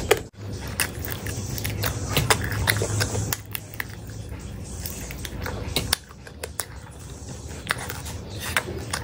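Close-miked chewing and wet mouth smacks from eating oily pork pickle by hand, with many short sharp clicks scattered through.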